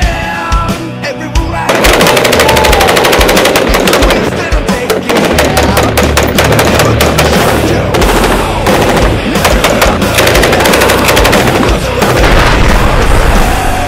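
Rapid automatic machine-gun fire, starting about two seconds in and continuing, mixed over loud rock music.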